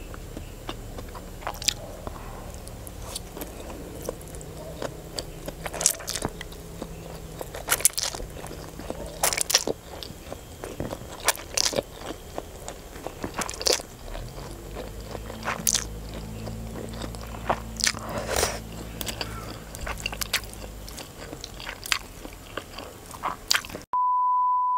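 Close-miked eating: instant noodles slurped and chewed, with irregular sharp crunches and clicks from bitten food and chopsticks. Near the end it cuts to a steady high beep, a test tone over colour bars.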